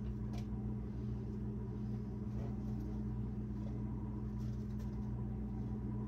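Steady low electrical hum, with a few faint soft taps as strawberries are scooped by hand into a measuring cup over a stainless-steel stockpot.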